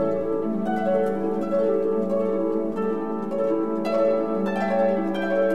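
Orchestral-style background music led by plucked strings, the notes changing every half second or so.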